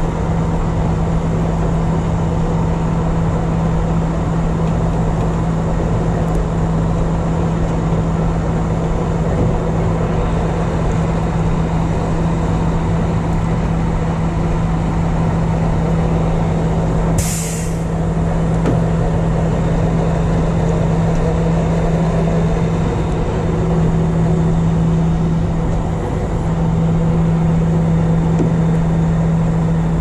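Recovery truck running steadily with its winch at slow speed, hauling a submerged vehicle up a boat ramp. A brief sharp hiss of air about seventeen seconds in.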